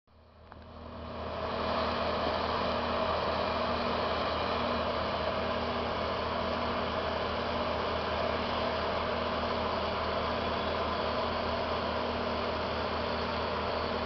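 Heavy tree-service machinery engine running steadily at a constant speed, with a low hum under a broad mechanical drone; it swells in over the first two seconds, then holds level.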